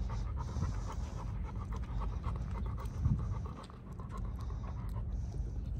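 Dog panting steadily, a fast, even rhythm of soft breaths in and out.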